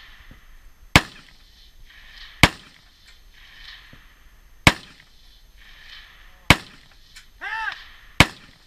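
Five rifle shots at a steady pace, one every one and a half to two and a quarter seconds, each a sharp crack with a short echo.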